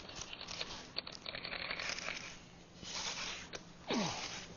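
Close handling noise: fingers rubbing, scraping and clicking on a fishing lure and line right at the microphone, in irregular bursts. A short falling whistle-like sound comes near the end.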